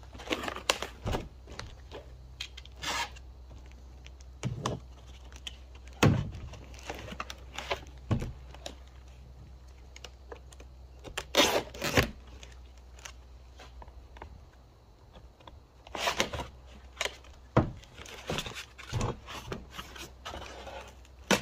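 A cardboard parts box being opened with a box cutter: packing tape scraped, cut and torn off in irregular short bursts, with a few sharp knocks as the box is handled.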